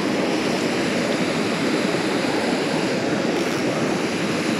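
Water rushing steadily over a small spillway.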